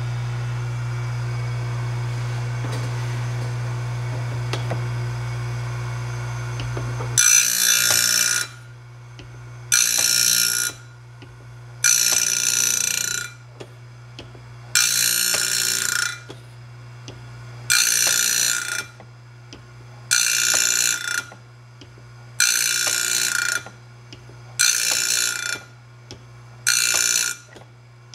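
Homemade automated bandsaw blade sharpener running. Its electric grinder hums steadily, then from about seven seconds in the grinding wheel comes down on the blade in regular grinding strokes, each about a second long and one every two seconds or so, as the linkage lifts and drops the grinder from tooth to tooth.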